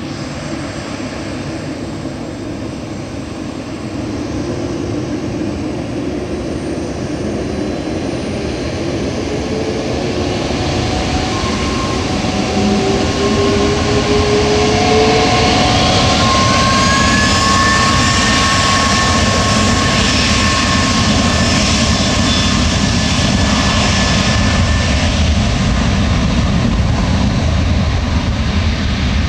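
Airbus A310-304's twin General Electric CF6-80C2 turbofans spooling up from idle toward takeoff thrust as the jet starts its takeoff roll. Steady jet rumble that grows louder, with a rising whine about midway, then a loud steady roar as the aircraft moves away.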